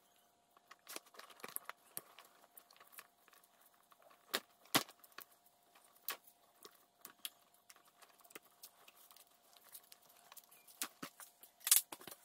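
Loose Mercedes M119 engine wiring harness being handled: plastic connectors and corrugated loom clicking and clacking against each other and the bench, with light rustling of the wire bundles. The clicks are scattered and irregular, a few sharper clacks standing out, over a faint steady tone.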